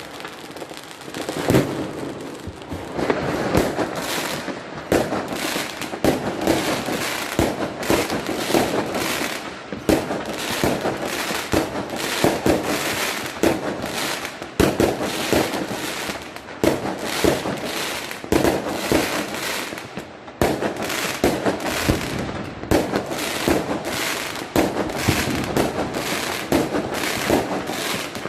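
Many fireworks and firecrackers going off at once across a city: a continuous crackling haze broken by frequent sharp bangs, several every second.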